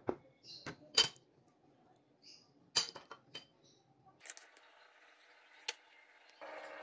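A table knife clicking and clinking against the cake tray and plates while frosted chocolate cake is cut: a handful of short, sharp clicks, with a brief ring after a couple of them.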